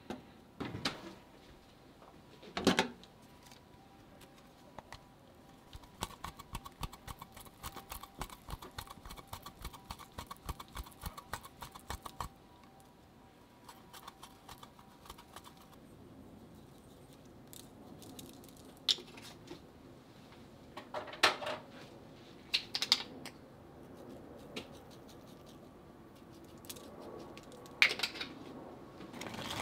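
Kitchen handling noises as food is prepared on a plastic-wrapped tray: a couple of knocks near the start, a run of quick small clicks lasting several seconds, then a few scattered sharp taps, over a faint steady hum.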